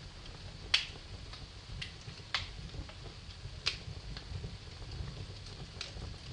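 Wood fire crackling in a fireplace: a low steady rumble of the flames with sharp pops from the burning logs, three loud ones and a few smaller ones.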